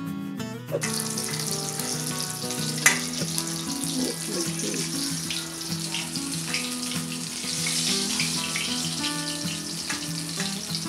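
Fish steaks sizzling in hot mustard oil in a steel kadai as they are lifted out with a steel spatula, with a sharp metal clink about three seconds in. Background music plays underneath.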